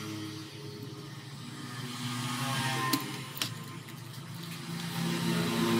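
Background music playing, with two sharp clicks about three seconds in, half a second apart, as small metal parts are handled.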